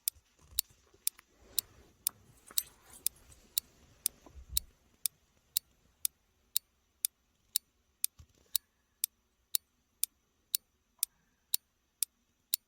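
A clock ticking steadily, about two sharp ticks a second, with faint rustling and a low thump about four and a half seconds in.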